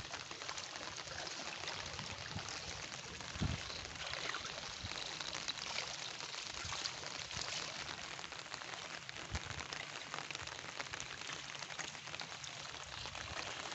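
Floodwater sloshing and splashing: a steady patter of small splashes and trickles, with a couple of slightly louder splashes.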